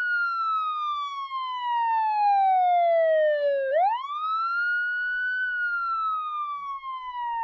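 Police siren wailing: one tone that falls slowly, swoops back up about halfway through, then falls slowly again.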